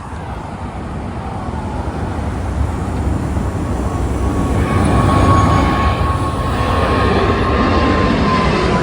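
Jet airliner passing overhead: a rumbling engine noise that grows louder over the first five seconds and then holds, with a high whine that drops slightly in pitch in the second half.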